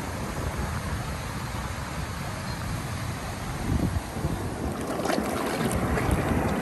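Sea waves breaking and washing over a rocky shore, with a steady wind rumble on the microphone. The water swells briefly about four seconds in and turns to fuller splashing and trickling near the end.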